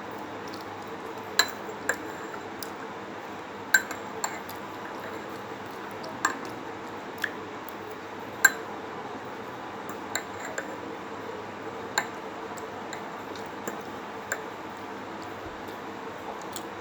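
Dishes and tableware clinking now and then, a dozen or so sharp irregular clinks, as two people eat their way through plates of beef curry. A steady background hum runs underneath.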